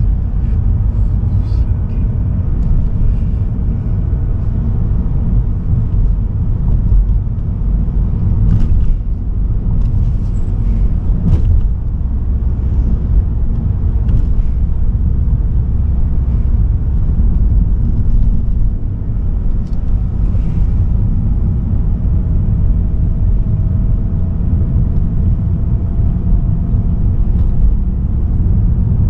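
Car driving on a road: steady low rumble of tyres and engine, with a faint whine that slowly rises in pitch near the end and a few light clicks.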